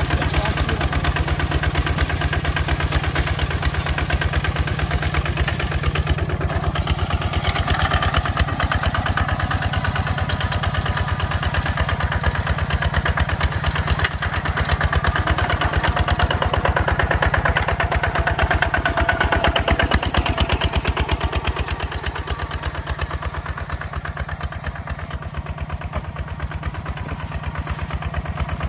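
Walk-behind two-wheel tractor engine running steadily with a rapid, even firing beat. It eases off a little past the two-thirds mark.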